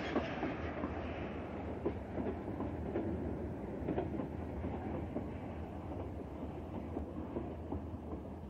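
Freight train of boxcars rolling slowly through a rail yard: a steady rumble of wheels on rails with irregular clacks and clicks over the rail joints.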